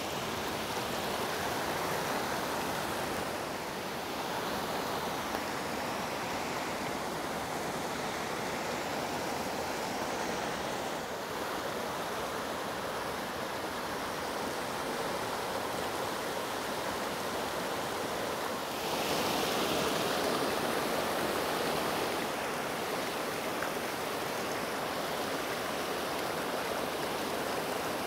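A small mountain stream running over rocks and branches in a shallow riffle, a steady rush of water that swells a little for a few seconds about two-thirds of the way through.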